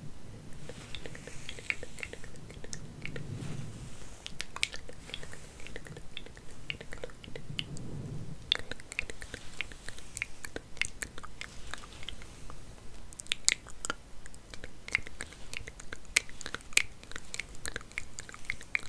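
Hair being combed and handled close to the microphone: a dense run of small, irregular crackles and clicks, with two soft low rustles about three and eight seconds in.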